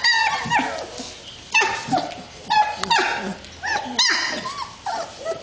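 Young German Shepherd puppies yelping and whining: a run of short, high-pitched calls, one every half second or so.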